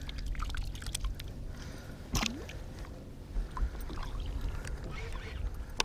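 Fishing-boat background: a steady low rumble with faint water sounds against the hull, broken by a sharp knock about two seconds in and a few lighter clicks.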